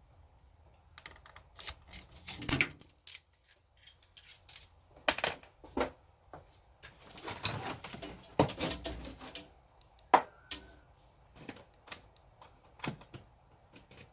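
Irregular clicks, clinks and clatters of small hard parts being handled and set down, with the loudest clusters at about two and a half seconds, around five to six seconds and from seven to nine seconds.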